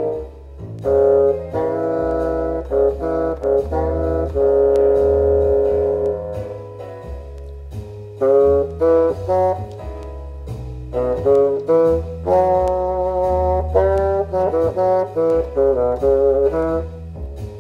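Two multitracked contrabassoon parts playing together: a melody in separate, changing notes over a sustained low line, with brief breaths between phrases.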